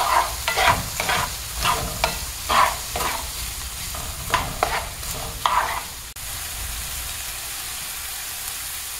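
Wooden spatula stirring and scraping diced onions and peppers sautéing in oil in a nonstick skillet, about two strokes a second, over a steady sizzle. About six seconds in the stirring stops abruptly and only the sizzle of the frying vegetables goes on.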